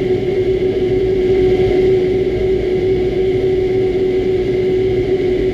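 Doosan Puma 2600SY II CNC lathe drilling a spinning aluminum part with an inserted drill: a steady cutting and spindle sound with a constant pitched whine over the noise of the cut.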